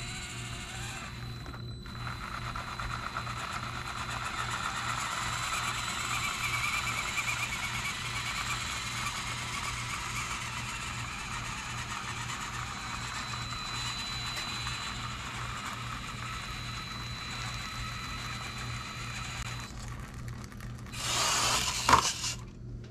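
Hobby Plus CR18P T-Hunter micro RC crawler's small electric motor and geartrain whirring steadily with a thin high whine as it crawls up a 59° ramp. A short louder clatter comes near the end.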